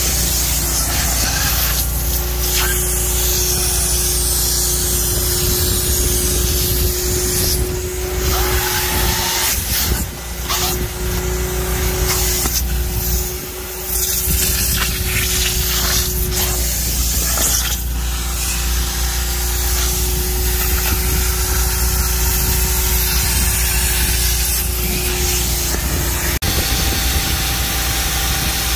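Carpet extractor running, its vacuum motor giving a steady hiss and hum as the wand pulls water out of fabric upholstery and carpet. The sound dips briefly twice, about ten and fourteen seconds in.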